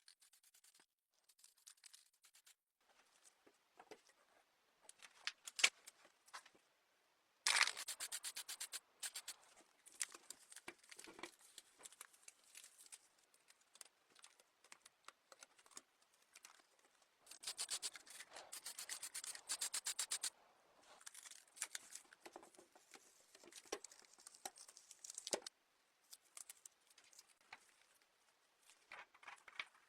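Close-up handwork on a die-cast model car being restored: irregular scratchy rubbing and small clicks. There are two longer runs of rapid, rasping strokes, one about seven seconds in and one from about seventeen to twenty seconds in.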